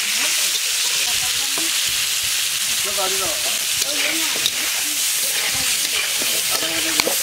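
Green mango slices sizzling in hot oil in an aluminium wok, stirred and turned with a metal spatula that scrapes the pan, with a sharp knock of the spatula about seven seconds in.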